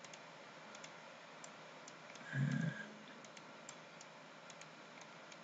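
Faint, irregular computer mouse clicks over a low steady hiss, with a brief louder low sound about halfway through.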